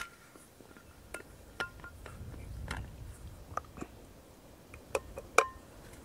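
Stainless-steel thermos flask being opened by hand: scattered clicks and small metallic clinks as the cup and stopper come off. A louder clink near the end rings briefly.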